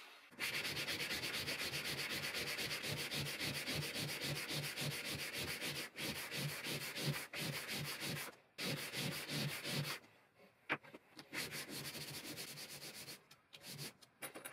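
Small brass piece rubbed by hand back and forth on sandpaper laid flat on a bench: a steady run of quick, even sanding strokes. About ten seconds in the strokes stop, leaving a few light clicks and scrapes as the small pieces are handled.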